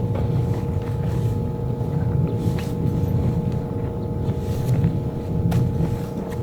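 A motor running steadily: a low rumble with a constant whine over it and a few faint clicks.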